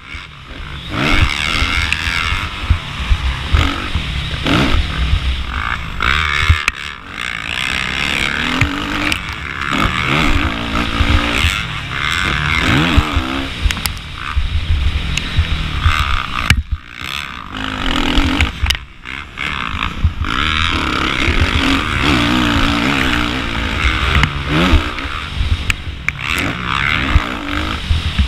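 Suzuki RM-Z450 dirt bike's 450 cc single-cylinder four-stroke engine ridden hard, revving up and down through the gears with its pitch rising and falling with the throttle. It drops off briefly a few times.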